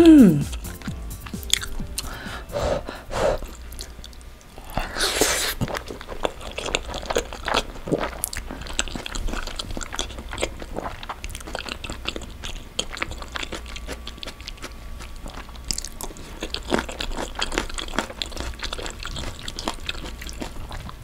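Close-miked chewing of a mouthful of cream linguine: wet mouth clicks and smacks throughout, with one longer breathy, hissing sound about five seconds in.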